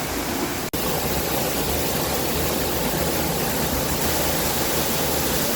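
Waterfall: the steady rush of falling water close by, broken once by a momentary gap a little under a second in.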